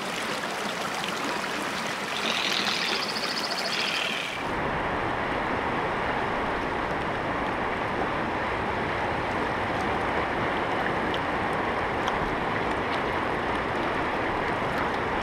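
Steady rushing noise of fast-flowing river water, becoming fuller and deeper about four seconds in, with a brief higher-pitched chattering sound over it about two seconds in.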